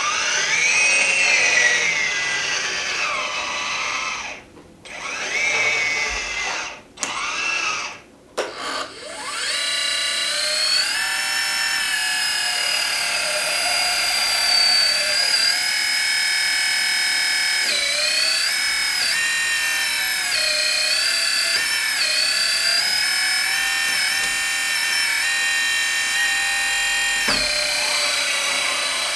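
Whine of the electric hydraulic pump in a 1/14-scale Kabolite K350 RC hydraulic excavator, with no sound module running. For the first several seconds the whine rises and falls in pitch and cuts out three times. After that it runs steadily, its pitch dipping and stepping as the boom, arm and bucket are worked.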